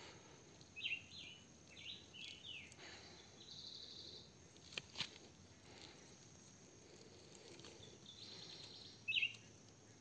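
Quiet woodland ambience with short, quickly sweeping chirping calls repeated several times and brief rapid pulsing trills, with two sharp clicks about halfway through and a last loud burst of chirps near the end.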